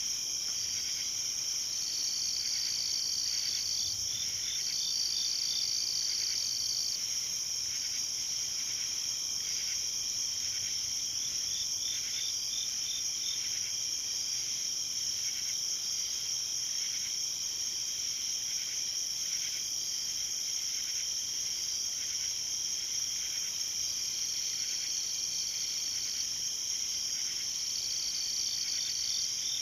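Night chorus of crickets and other insects: a steady high-pitched drone, with separate trills that come and go every few seconds and now and then a short run of rapid chirps.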